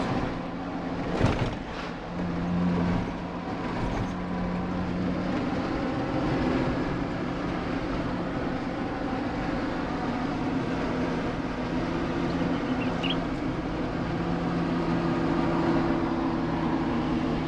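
Cabin noise of a Jeep Wrangler driving on a paved road: a steady engine drone with tyre and road rumble, and a brief knock about a second in.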